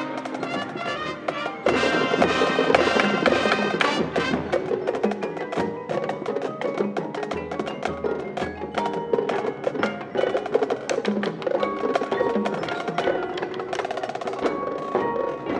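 High school marching band playing, a percussion-heavy passage with pitched mallet instruments sounding over the drums.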